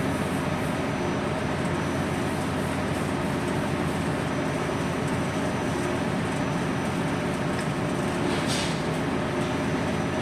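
Steady drone of ship's machinery, an even mechanical hum with no break, and a brief hiss about eight and a half seconds in.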